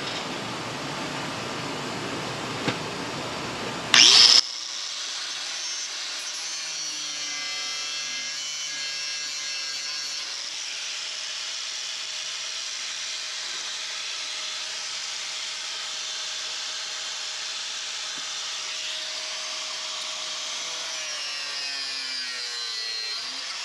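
Power tool running steadily while cutting away rusted sheet steel from a fender, with a short, very loud burst about four seconds in.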